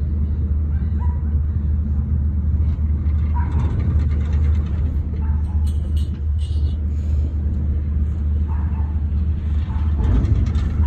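Steady low rumble of a motorboat under way, heard from on board: its engine running at an even cruising speed.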